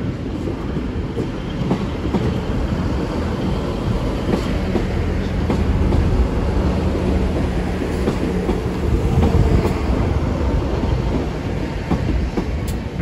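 Class 158 diesel multiple unit running past close by, its underfloor diesel engines rumbling and its wheels clicking over rail joints and pointwork. It is loudest about halfway through as the coaches go by.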